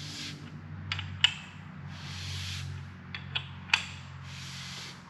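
A wrench turning the crankshaft of a freshly assembled Mopar big-block short block: four sharp metal clicks in two close pairs as the wrench is worked, with a soft rushing noise between them. The engine turns over freely, the sign of a well-assembled bottom end.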